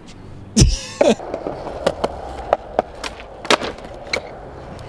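Skateboard popped for a flip trick with a sharp crack, landing with a second smack about half a second later. The wheels then roll on concrete sidewalk, clacking several times over the slab joints.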